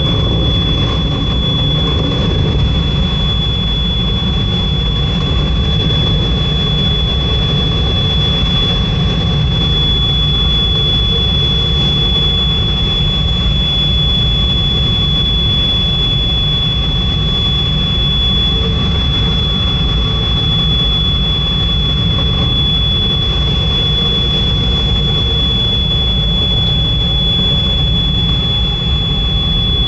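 Steady rush of airflow noise in a LAK17B FES glider's cockpit on the final approach to landing, with a steady high-pitched electronic tone over it.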